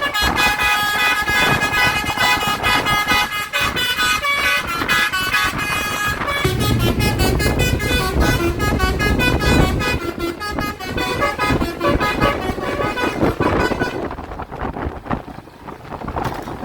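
Tour bus telolet 'basuri' musical horn playing a fast tune of short tooting notes. A deep vehicle rumble sits under the tune in the middle, and the tune stops about two seconds before the end.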